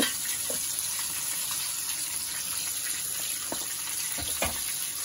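Steady hiss of oil sizzling in a frying pan, with a few light knocks near the end.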